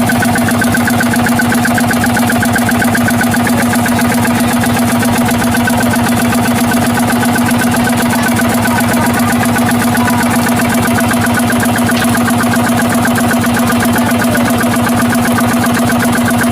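Fishing boat's engine running steadily at a constant speed, a loud even hum with a fast regular pulse.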